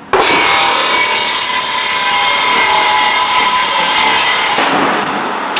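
A tool cutting wood at a workbench, running steadily with a whine. It starts abruptly and drops a little about four and a half seconds in.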